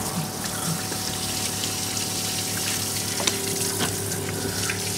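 Coin-operated drinking-water vending machine dispensing: water runs from the outlet over a steady pump hum.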